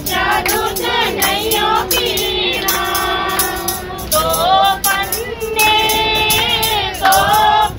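A group of women singing a Hindu devotional bhajan together, keeping time with steady rhythmic hand-clapping.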